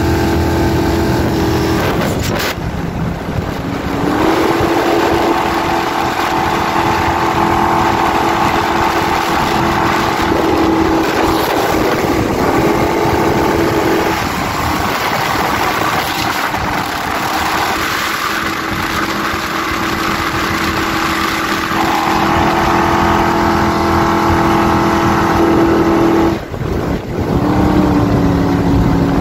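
Big-block Ford V8 of a jet boat running hard at full throttle, a steady sustained engine note. The revs dip briefly about two seconds in and again near the end.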